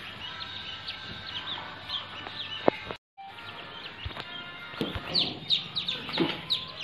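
Ducklings peeping: a steady run of short, high, falling cheeps, which grow louder and quicker in the second half after a brief cut.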